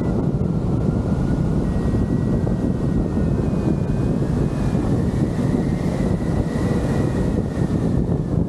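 Rushing wind buffeting the microphone of a camera mounted on a hang glider in low, fast flight, a steady loud roar of airflow. A faint, thin high whistle runs underneath, shifting slightly in pitch.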